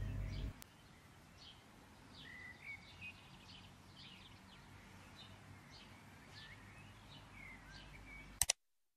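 Faint bird chirps, short and scattered, over a quiet background, after a low steady hum cuts off about half a second in. Near the end comes a sharp double click.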